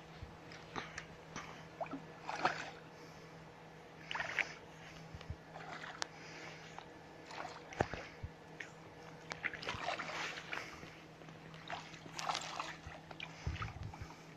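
A hooked small pike splashing and thrashing at the water's surface as it is reeled in to the shore on a spinning rod: a run of short, irregular splashes, busiest in the second half.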